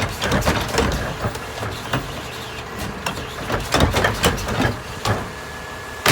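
Mini New Way rear-loader garbage truck packing heavy trash: irregular sharp cracks and crunches over the steady running of the truck's engine, busiest about four seconds in.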